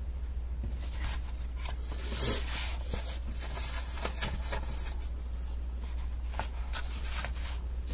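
Faint rustles and light taps of a rolled paper scroll and a notebook being handled, with a brief louder rustle about two seconds in, over a steady low hum.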